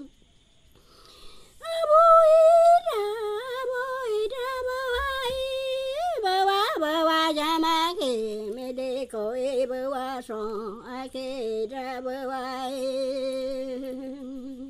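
A Shipibo ikaro (healing song) sung unaccompanied by a woman. After about a second and a half of quiet, the voice comes in on long held notes that step up and down between a few pitches, with a quick wavering ornament on some of them.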